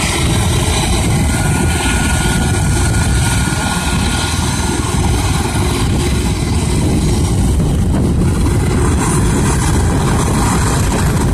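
Eurocopter EC135 air-ambulance helicopter running on the ground, its turbines and rotor making a loud, steady noise, with a faint turbine whine in the first couple of seconds.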